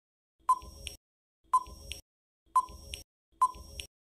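Countdown-timer sound effect: four short, sharp beep-ticks about once a second, each a clear tone that fades quickly, with silence between them, counting down the answer time on a quiz.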